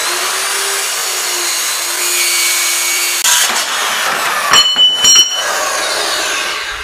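Milwaukee 8-inch metal-cutting circular saw running steadily through 1-inch mild steel flat bar, with a high-pitched cutting noise. About three seconds in the cut ends, two ringing metal clanks follow, and the blade winds down with a falling whine.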